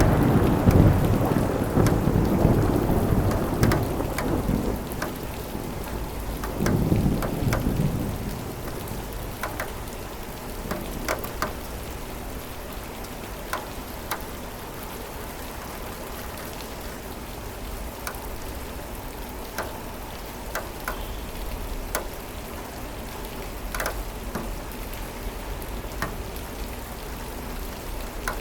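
Thunder rolling and dying away over the first several seconds, with a second shorter rumble about seven seconds in, then steady rain with scattered drops ticking.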